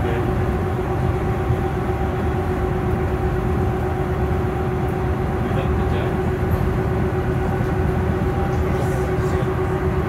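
Electric bus traction motor whining at a steady pitch, heard from inside the cabin over a low rumble of road and body noise.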